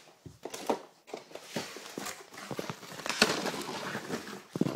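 Cardboard packaging being handled close to the microphone: irregular rustling and scraping with short knocks and clicks, the loudest about three seconds in.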